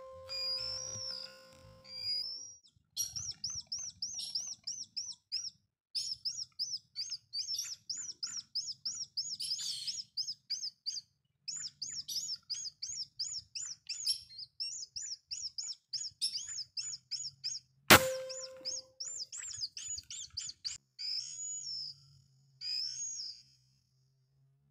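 Barred rail calling: long runs of rapid, repeated high notes, broken by short pauses. About 18 seconds in, a single sharp crack of a PCP air rifle shot.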